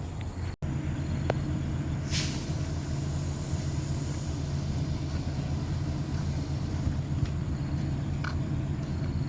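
Excavator engine running steadily at a low, even hum, with a short dropout about half a second in, after which the hum sits at a slightly different pitch.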